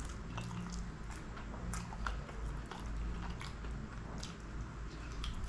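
Close-miked eating: a person tearing meat off a spiced chicken drumstick with his teeth and chewing, heard as a run of irregular mouth clicks and smacks.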